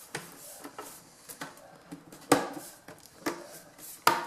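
Plastic screen bezel of an Asus Q551L laptop being pressed onto the lid by hand, its clips snapping into place with a few separate sharp clicks, the loudest a little over two seconds in.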